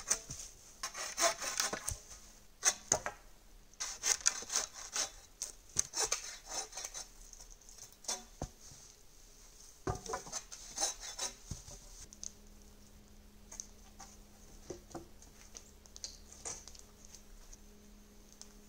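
Hand saw cutting through wooden poles, with runs of rasping back-and-forth strokes, a pause, then another short run of strokes about ten seconds in. The sound is fainter and scattered near the end.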